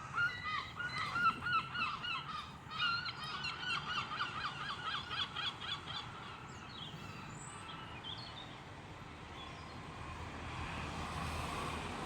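Flock of birds calling in rapid, overlapping, honking calls for about six seconds, then thinning out. A steady background noise remains and grows a little louder near the end.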